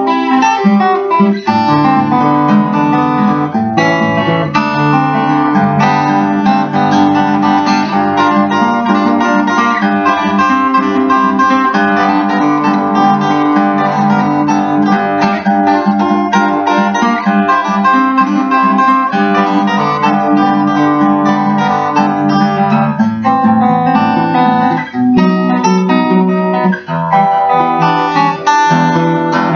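Solo cutaway acoustic guitar played fingerstyle: a busy, even run of plucked notes over steady bass notes.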